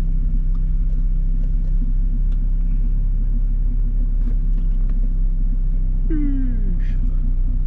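Car engine idling steadily, a low rumble heard from inside the cabin. About six seconds in, a brief falling tone lasting under a second.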